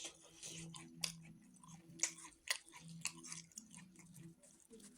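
Close-miked chewing of rice and buffalo meat, with irregular wet smacking clicks of the mouth.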